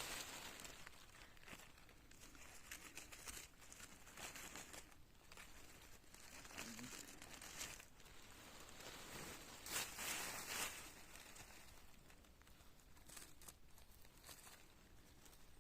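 Faint rustling and crinkling as stump honey mushrooms and the forest litter around them are handled and picked, with a louder burst of crackling for about a second near ten seconds in.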